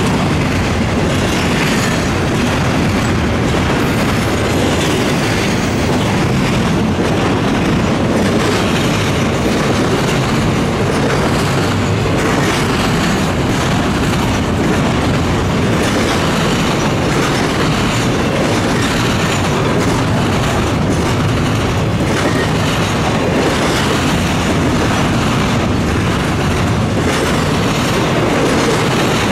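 Double-stack intermodal well cars rolling past close by: a steady, loud rumble of steel wheels on rail, with repeated clicking as the wheels cross rail joints.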